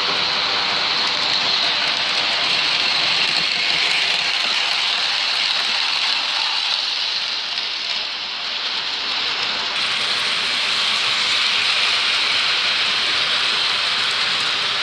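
Electric model trains running past on metal three-rail track: a steady whirring rattle of wheels and motors, with a faint hum underneath.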